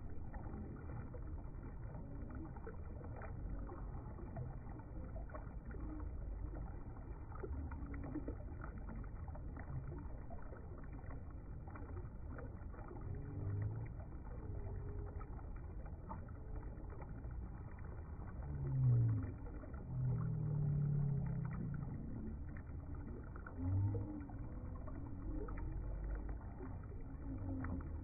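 Shallow river water rippling and gurgling over rocks, heard deep and muffled, with a few louder low gurgles in the second half.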